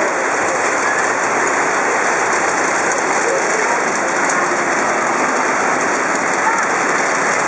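Heavy downpour during a thunderstorm: torrential rain pelting the wet road and pavement in a steady, dense hiss.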